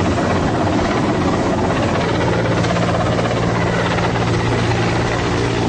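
Helicopter hovering low and close, its rotor and engine noise blended with the rush of wind and a speedboat's outboard motors. From about two seconds in, a steady low hum stands out in the din.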